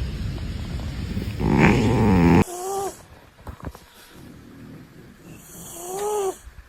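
Sleeping cats snoring: a loud rumbling snore cuts off abruptly a little over two seconds in, followed by a quieter snore with two short whistling notes that rise and fall, about three seconds apart.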